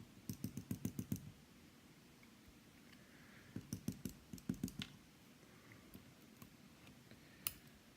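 Quick light clicking from small metal parts and tools as a Yale Superior lock cylinder is taken apart. Two rapid runs of clicks, each about a second long, then a single click near the end.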